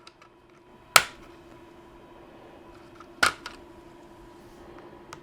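Two sharp clicks about two seconds apart, with a few faint ticks, as precision Torx screwdrivers are picked out of and put back into a screwdriver set to find one that fits. A faint steady hum runs underneath.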